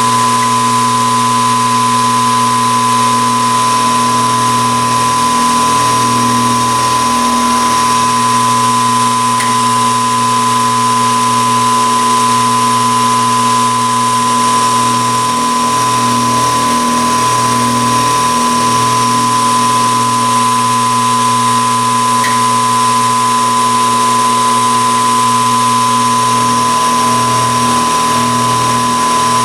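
A metalworking machine tool running steadily, with a constant motor hum and a steady high whine.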